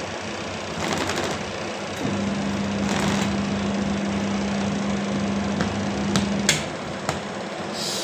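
Realme TechLife 7 kg semi-automatic washing machine running, its motor humming steadily from about two seconds in until it cuts off about a second and a half before the end, with a few light clicks near the end.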